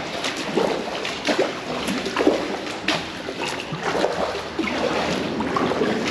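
Kayak paddle strokes through calm water, with irregular splashes and water dripping off the paddle blades.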